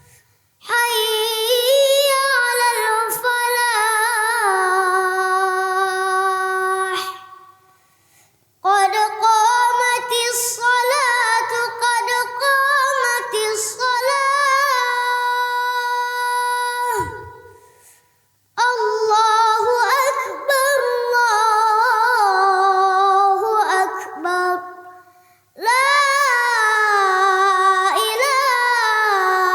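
A single high, young voice singing unaccompanied in long, ornamented, wavering phrases, four of them, with short breaths between.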